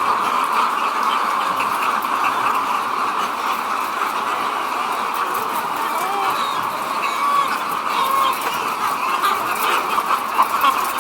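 A large flock of chickens in a poultry shed calling and clucking all at once, making a dense, steady chorus with a few individual calls rising above it in the middle.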